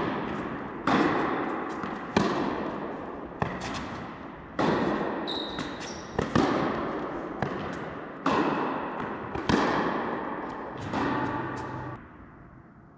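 Tennis rally: a ball struck by rackets and bouncing on the court, about ten sharp hits roughly a second apart, each echoing in a large indoor tennis hall. The hits stop about twelve seconds in, when the point ends.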